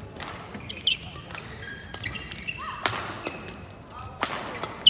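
Badminton racket strikes on a shuttlecock during a fast doubles rally: several sharp hits at uneven spacing, the hardest at the very end as a player smashes from a jump. Short high shoe squeaks on the court floor come between the hits.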